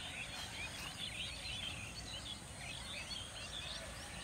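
A chorus of small birds chirping, with many short, quick chirps overlapping continuously.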